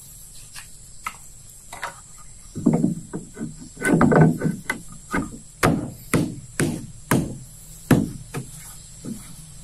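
Repeated blows on wood, as in hammering or chopping at a wooden boat build: a quick flurry of knocks, then single strikes about two a second that stop near the end.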